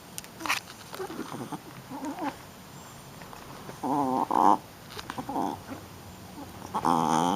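Shih Tzu puppy vocalizing in play: short scattered sounds, then two louder wavering, pitched vocalizations, one about four seconds in and one near the end.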